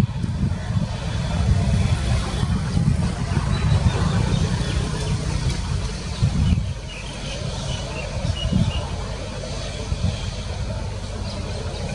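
Airbus A350's Rolls-Royce Trent XWB jet engines running as the airliner rolls along the runway: a deep, steady rumble that eases somewhat a little over halfway through.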